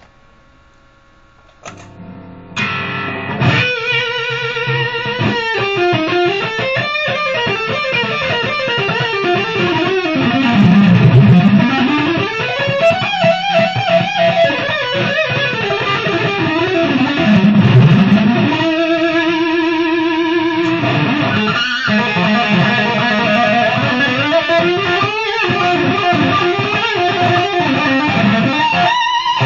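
PRS P22 electric guitar played as fast lead: quick runs sweeping up and down in pitch, with held notes wavering in vibrato. The playing starts about two seconds in.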